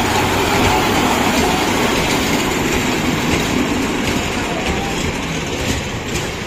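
Children's amusement-park mini train running past close by on its narrow track: a steady running noise that eases a little toward the end.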